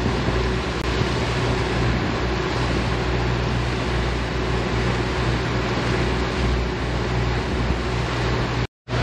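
A 1999 Carver 504 motor yacht underway: the steady drone of its engines under a constant rush of wind and water, cutting off abruptly just before the end.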